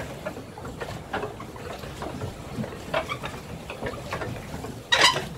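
Steady low rumble of wind and water aboard a pedal boat under way, with faint scattered knocks and voices; a sudden loud sound comes about five seconds in.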